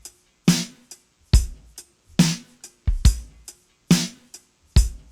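Drum kit playing a slow, steady beat alone, bass drum and snare hits alternating about once a second with light hi-hat ticks between them.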